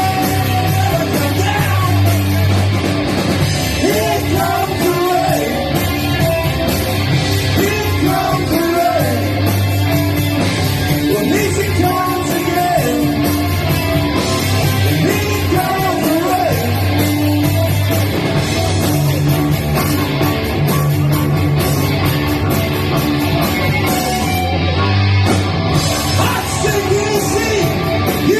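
Loud rock music with a sung or shouted vocal over distorted guitars, bass and drums, playing continuously.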